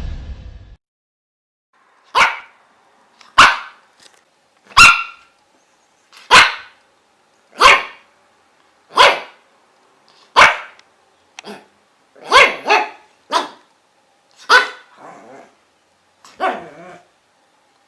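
A dog barking: about a dozen single sharp barks, starting about two seconds in and coming roughly every second and a half, a few of them in quick doubles, with silence between.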